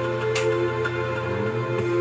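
Music: held steady tones with a sharp percussive hit about a third of the way in.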